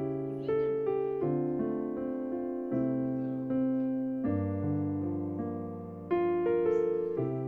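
Background piano music: slow chords, each struck and left to fade, with a new chord about every one and a half seconds.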